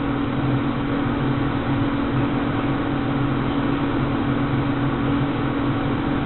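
Steady low mechanical hum with an even hiss, unchanging throughout: background noise of a running room appliance such as a fan.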